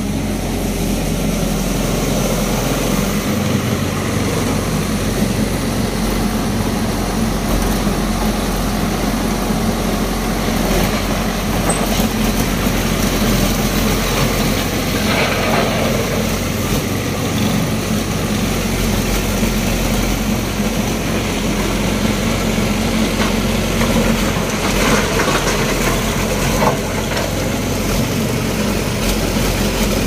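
Backhoe's diesel engine running steadily, its speed holding constant with no revving.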